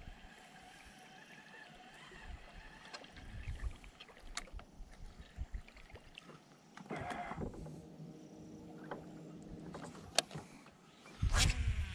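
Topwater frog lure being worked across calm water: faint scattered plops and clicks. A louder low rumble sets in near the end.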